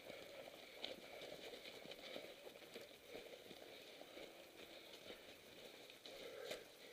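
Faint, irregular crunching footsteps in snow as riders walk their mountain bikes along a snowy trail.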